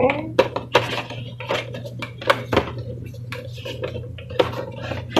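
Irregular light clicks, taps and knocks of hard objects being handled, like an action-figure box and its plastic contents being turned over.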